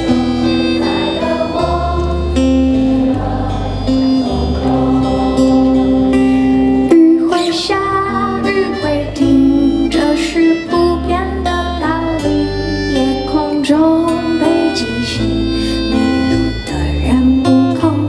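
Live pop song accompanied by accordion and keyboard. At first the audience sings along with the microphone held out to them, and from about seven seconds in a woman sings the lead into the microphone.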